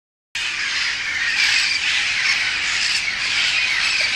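A large flock of feral parrots squawking, many harsh calls overlapping into a continuous din.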